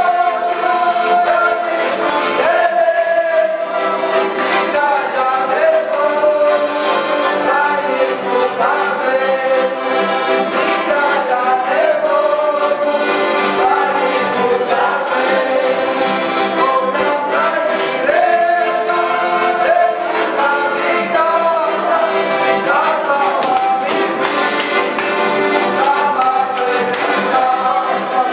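Live piano accordion and acoustic guitar accompanying two men singing a song together.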